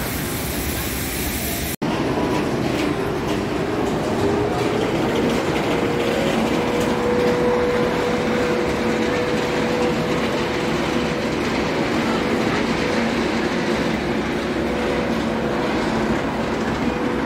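Steel roller coaster trains running on their track: a continuous loud rumble, with a steady whine setting in about five seconds in.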